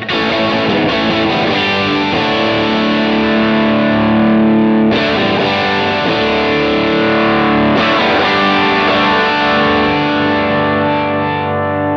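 Distorted electric guitar played through a Kemper Profiler's Marshall amp profile, with its graphic EQ boosting the mids. The chords ring out and are struck again about five and eight seconds in.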